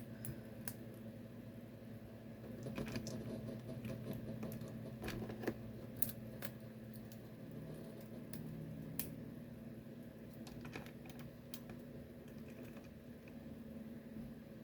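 Irregular clicks and taps of toy shells being pressed into a toy revolver's cylinder and handled, over a steady low hum.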